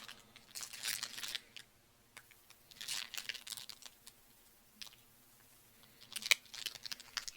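A person chewing a mouthful of a soft peanut butter and caramel chocolate bar close to the microphone, in three short bouts with pauses between.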